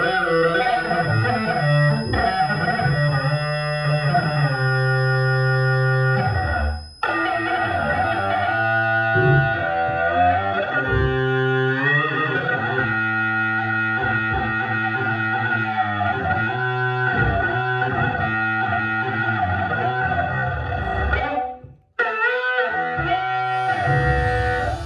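Electric guitar played through effects and distortion: layered, sustained pitched tones that cut out abruptly about seven seconds in and again near the end before resuming.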